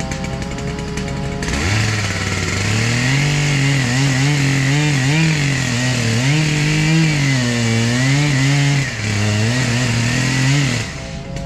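Chainsaw running at high revs, then from about a second and a half in cutting into spruce wood under load, its engine note dropping and wavering through the cut before it frees up and revs high again near the end.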